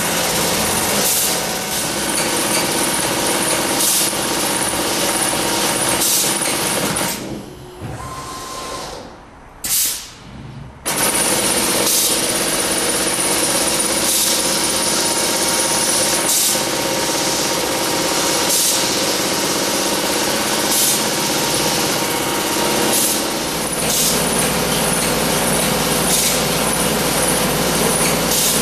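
Wilcom AutoTuft TM3040 robotic tufting machine with a pneumatic tufting head running steadily, a mechanical din with a steady whine and short sharp noises every second or two. About seven seconds in it drops away for about four seconds, with a sharp click, then starts up again.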